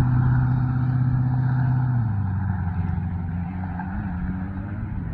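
A car passing on a nearby road: a steady low engine hum that drops in pitch and fades about two seconds in as it goes by, with wind noise.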